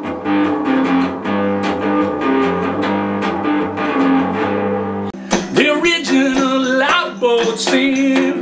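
Guitar music: plucked and strummed guitar over held low notes. About five seconds in the low notes drop out and bending, wavering notes take over.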